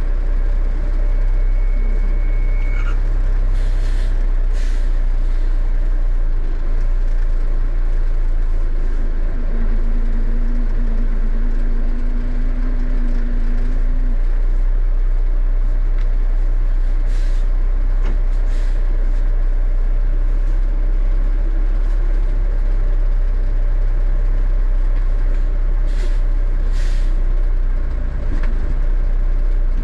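1974 Kenworth log truck's diesel engine running steadily under load as the truck manoeuvres to turn around, with a few short air-brake hisses.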